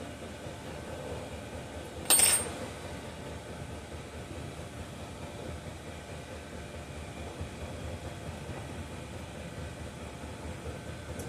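A single sharp metallic clink about two seconds in, ringing briefly, like a small metal part or tool set down on a hard surface during work on a chainsaw's ignition coil. Beneath it is a steady background hum.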